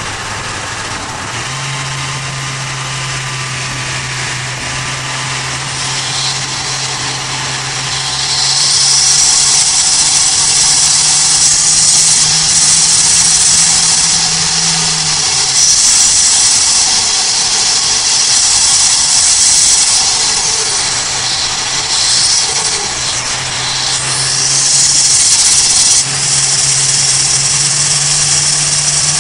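Turbocharged Toyota Avanza Veloz 1.5's engine heard from inside the cabin at highway speed, a steady drone that steps up in pitch as the throttle opens. From about eight seconds in a loud high turbo whistle rides over it, easing off for a few seconds, then coming back before cutting off suddenly near the end.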